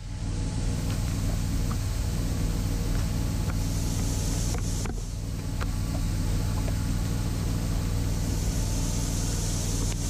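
John Deere 6620 combine running steadily while its unloading auger pours shelled corn into a truck bed: a steady low engine drone with a hiss of falling grain and a few faint ticks.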